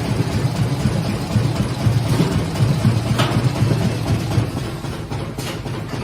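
Plastic bag forming machine running: a steady low mechanical rumble, with a couple of brief sharp strokes.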